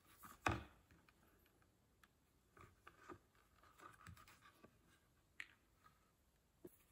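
Faint scattered ticks and rustles of a leather axe sheath being hand-stitched, a needle and thread pulled through the leather, with a soft thump about half a second in.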